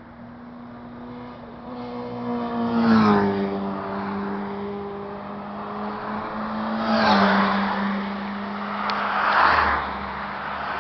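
Motorcycles and cars passing at highway speed. A steady engine note drops in pitch as a vehicle goes by about three seconds in, and again about seven seconds in. Near the end a car passes with a rush of tyre noise.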